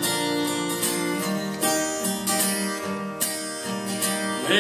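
Acoustic guitar strummed in slow chords, each strum ringing on into the next: the instrumental introduction before the singing comes in.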